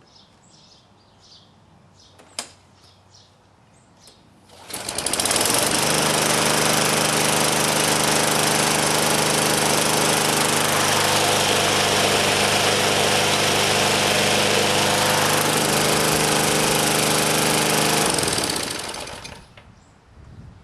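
Small single-cylinder walk-behind lawn mower engine catching and starting about four and a half seconds in. It runs steadily for about 13 seconds, then is shut off and winds down to a stop.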